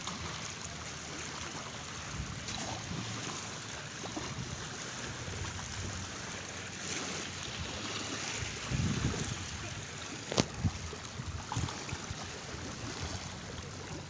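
Small sea waves lapping and washing over a flat rock and shingle at the water's edge, a steady wash, with gusts of wind on the microphone around the middle. A single sharp click about ten seconds in.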